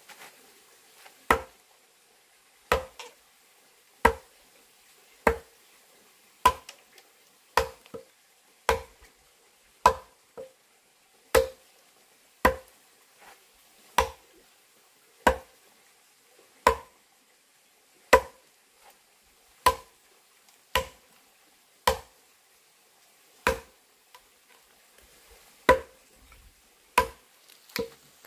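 Long-handled adze chopping into a log: about twenty sharp wooden strokes, roughly one every second and a half, with a longer gap near the end. The blade is cutting a notch into the log to hollow it out as a trough.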